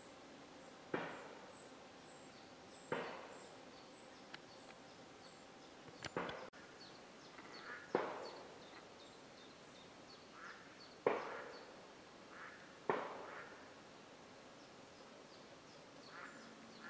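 Woodland birds calling: a harsh call repeated about every two seconds, six times, each fading quickly, over faint high chirping.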